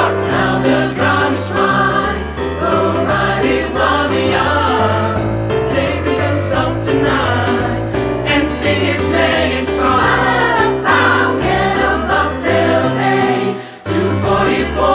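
Vocal group singing in several parts over a steady low bass line, an upbeat Christmas choral arrangement, with a brief break shortly before the end.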